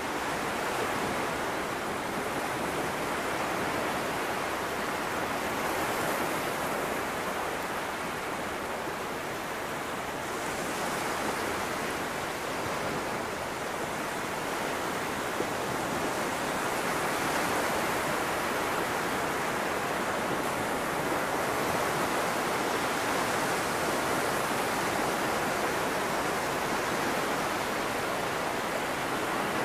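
Low surf breaking offshore and washing up a flat sandy beach: a steady wash of waves that swells and eases every few seconds.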